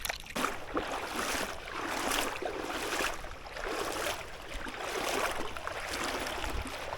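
Moving river water rushing and splashing, a noisy wash that swells and eases unevenly about once a second.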